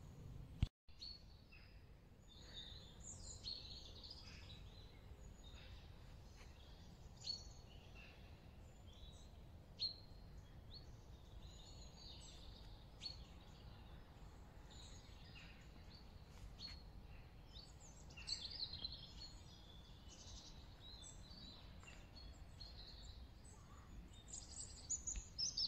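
Dawn birdsong: scattered chirps and short calls from several small birds in the trees, over a faint, steady low rumble.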